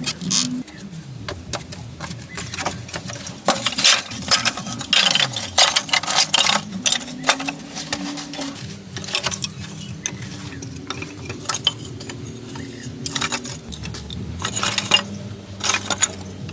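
Irregular light clinks and knocks of hard objects being handled, thickest a few seconds in and again near the end, over a low steady hum.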